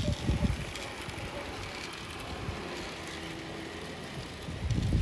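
Toy train running on its plastic track, with a steady small-motor whir. Low buffeting rumbles near the start and again near the end are the loudest part.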